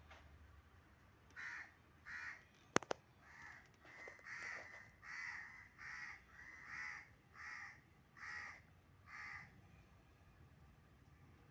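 A bird calling repeatedly, about a dozen short calls in a steady series roughly every two-thirds of a second, with one sharp click just under three seconds in.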